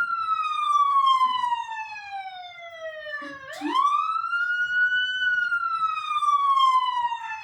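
Ambulance siren wailing in slow cycles: the pitch climbs quickly, then falls slowly over about three seconds, twice.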